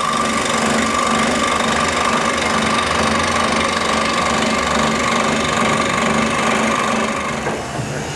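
Small electric bench saw running with a steady motor whine and hum as a thin wooden strip is fed through it; the whine stops near the end.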